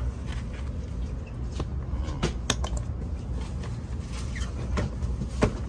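Steady low rumble of a high-speed train cabin, with several short sharp clicks and taps as the plastic fold-down tray table on the seat back is handled.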